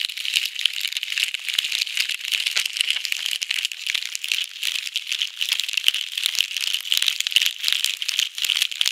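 Plastic rattle shaken fast and without pause: a dense, bright stream of small clicks.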